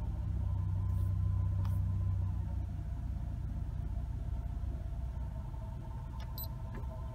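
Low steady rumble inside a pickup truck's cab, strongest for the first couple of seconds and then easing. There are a few faint short electronic pips as a car stereo's touchscreen is tapped, the clearest about six seconds in.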